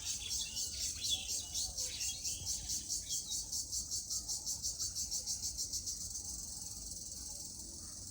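Cricket (jhijhi poka) chirring in a rapid, even pulse of about five beats a second, which fades out about six seconds in and leaves a steady high insect hiss. A few short falling bird chirps sound in the first two seconds.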